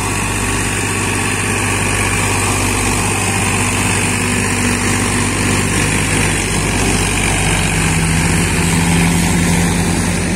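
Diesel tractor engine running steadily under load while its rear rotary tiller churns through flooded paddy-field mud.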